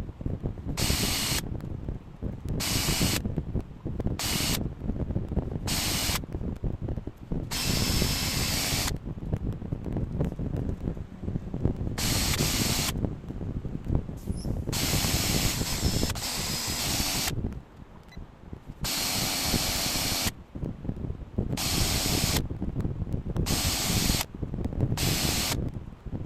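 A hissing jet switched on and off in about a dozen short bursts, each half a second to a second and a half long, over a steady low rumble.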